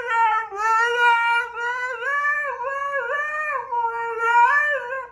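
Siberian husky howling: one long howl that keeps wavering up and down in pitch, then breaks off abruptly near the end.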